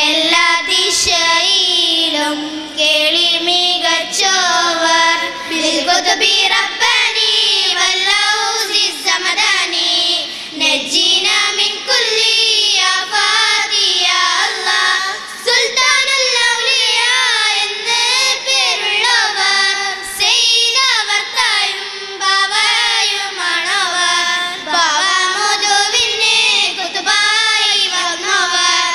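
A group of girls singing a song together into handheld microphones, several voices in unison, with short pauses between phrases.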